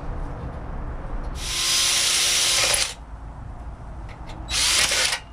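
Electric drill running in two short bursts, the first about a second and a half, the second under a second, drilling out a rivet.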